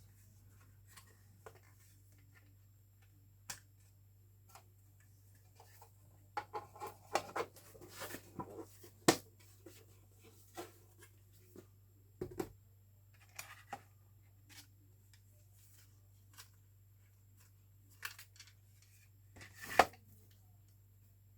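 Small clicks, taps and plastic rattles from an NSR slot car and its plastic display case being handled, busiest a few seconds in, with two sharp clicks near the middle and near the end. A steady low hum lies underneath.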